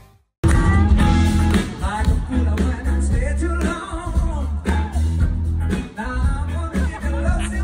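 Rock music with singing and a heavy steady bass, cutting in abruptly after a brief silence at the very start.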